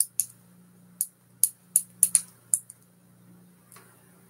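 About nine short, sharp clicks at irregular intervals, bunched in the first two and a half seconds with one more near the end, over a faint steady low hum.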